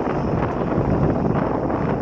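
Wind buffeting the microphone on a moving sightseeing boat, a steady rushing noise.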